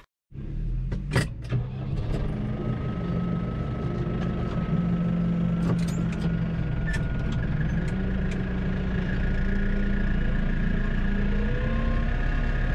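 Tractor diesel engine running steadily, heard from inside the cab, with a couple of sharp clicks about a second in.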